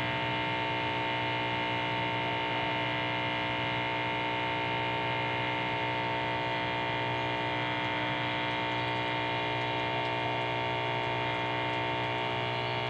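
Electric water pump running steadily, a bit noisy, with an even hum and whine that holds the same pitch throughout, as it pushes the mixed fertiliser solution out through the hose for watering.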